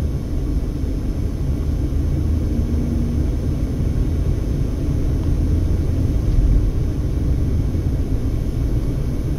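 Steady low rumble of engine and road noise inside the cabin of a moving Mercedes-Benz car, swelling slightly a little after the middle.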